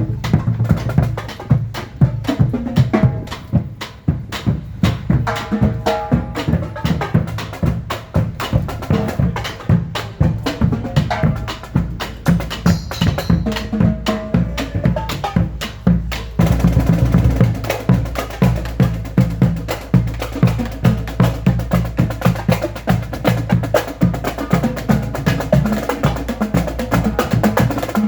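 Music with a fast, busy drum beat; it becomes fuller and brighter a little past halfway.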